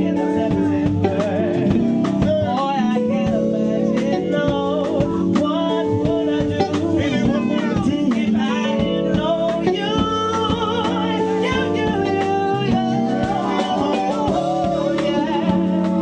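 Live neo-soul performance: a male singer singing into a handheld microphone over a live backing band of bass, drums and keyboards, heard through the room's PA.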